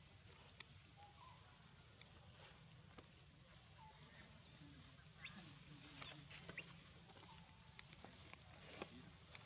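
Near silence: quiet outdoor ambience with a low steady hum, scattered faint small clicks and a few brief faint chirps.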